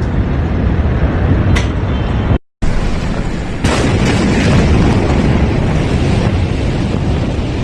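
Loud, continuous rumble of a large explosion, heavy in the lows. It breaks off briefly about two and a half seconds in, and the noise surges up again about a second later.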